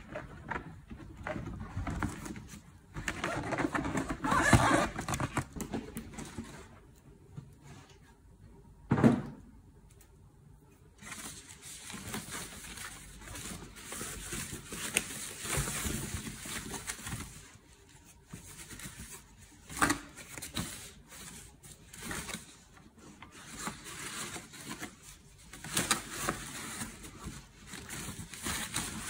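Hands handling a cardboard box and its insert, then rustling and crinkling a white wrapping sheet as it is peeled back from the iron inside, with a few sharper knocks along the way.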